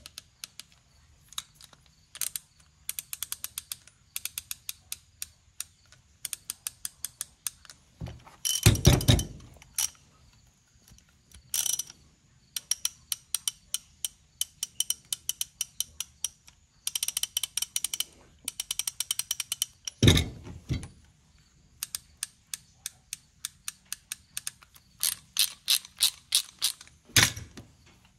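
Craftsman half-inch-drive swivel-head ratchet worked back and forth: repeated runs of quick, fine pawl clicks in short bursts. A few louder knocks of metal being handled fall in between.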